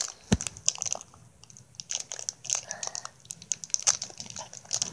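Close-up chewing, heard as an irregular run of small wet smacks and clicks with some crinkling.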